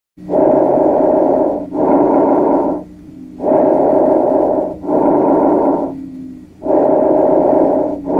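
Bronchovesicular breath sounds heard through a stethoscope: three breaths, each an inhalation and an exhalation of about equal length, with a short pause between breaths. This is a normal breath sound over the large airways.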